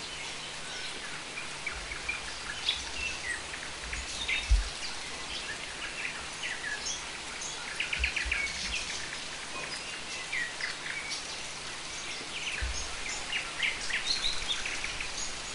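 Steady rain falling, with many birds chirping and calling throughout in short, quick notes. A few dull low thumps break in, the strongest about four and a half seconds in.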